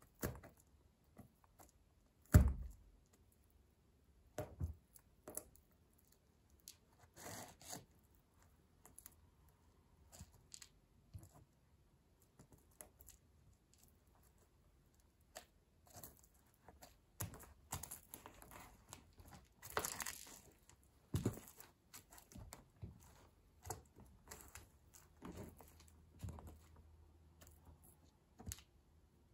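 A leather boot's stiletto heel grinding the splintered remains of a wooden pencil: irregular snaps, cracks and crunches of wood splinters, with one heavy thump a couple of seconds in and a denser run of crackling about two-thirds of the way through.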